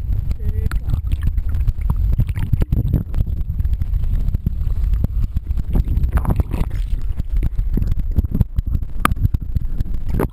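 Creek water churning and splashing right at the microphone: a steady low rumble with many small knocks and clicks through it.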